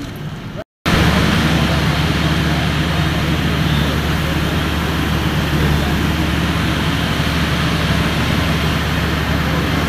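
A vehicle engine running steadily at idle, a loud low hum, with people talking around it. It starts after a brief dropout just under a second in.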